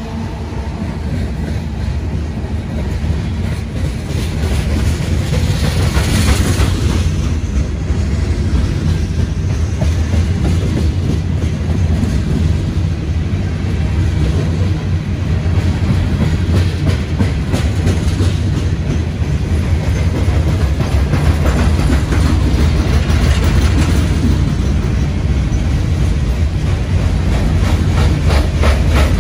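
Loaded CSX coal train's hopper cars rolling past: a steady low rumble of steel wheels on rail, with a rapid clickety-clack as the wheels cross rail joints.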